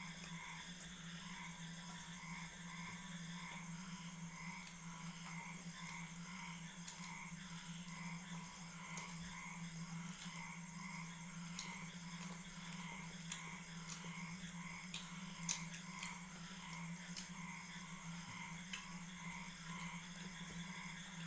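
Quiet eating at a table: scattered small clicks of hands and spoons against steel plates and bowls, the sharpest two about three-quarters of the way through. Under them run a steady low hum and a faint chirping that repeats about twice a second.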